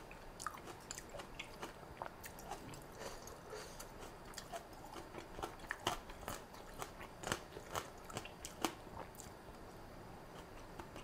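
Close-miked mouth sounds of a person chewing a mouthful of khanom jeen rice noodles in coconut curry with fresh vegetables: irregular soft clicks and crunches, a few louder ones between about six and nine seconds in.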